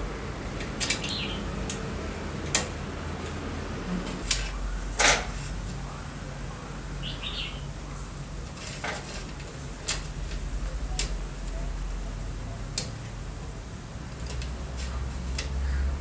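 Small metal parts of a Royal typewriter clicking and tapping as a screwdriver works at a metal rail and a metal slide is fitted onto it: about a dozen sharp, separate taps, the loudest a few seconds in, over a steady low hum.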